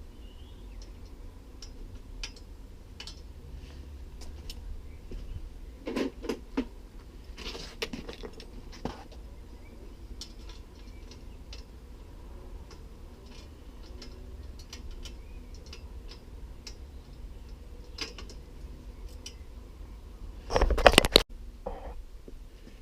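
Hand tools clicking and clinking on bicycle fittings while the rack is being unbolted, in scattered light knocks with a louder metallic clatter near the end.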